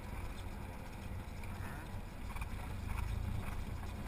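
Cessna 172's four-cylinder engine running at low power during the landing rollout, heard inside the cabin as a steady low hum with rumble from the roll along the runway. It gets a little louder about three seconds in.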